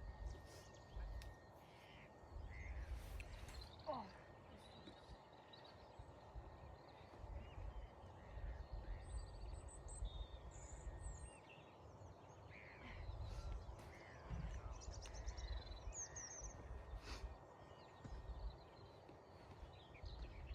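Quiet outdoor ambience: scattered short bird chirps and calls, with low rumbles coming and going underneath.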